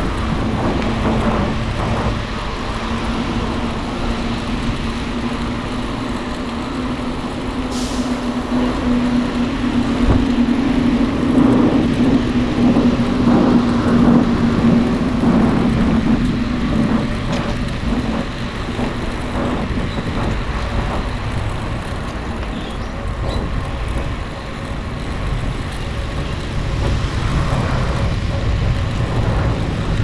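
Road and wind noise while riding a bicycle beside a road, with passing motor traffic. A steady low hum runs under it, rising slightly in pitch before stopping about two-thirds of the way through.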